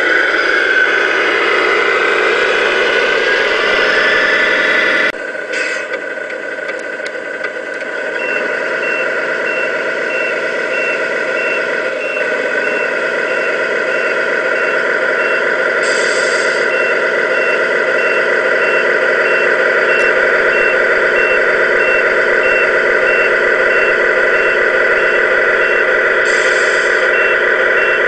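1/14 Tamiya King Hauler RC semi truck's sound unit playing a simulated diesel truck engine running steadily, its note changing about five seconds in. From about eight seconds a reversing beeper sounds roughly once a second as the truck backs up, with two short hisses, about halfway and near the end.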